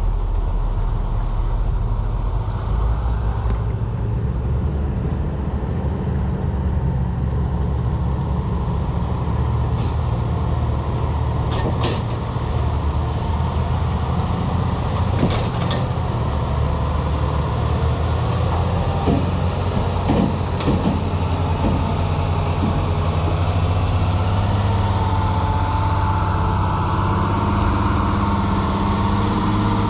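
Heavy diesel engine running steadily, with a few metallic knocks and clanks about halfway through.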